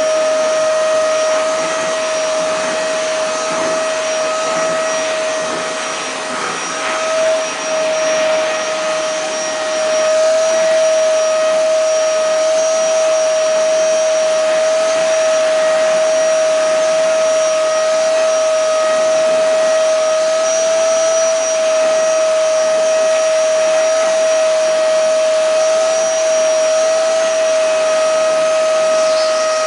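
Vacuum cleaner running steadily, its motor giving a constant high whine over a rushing hiss. The sound wavers briefly about six to eight seconds in.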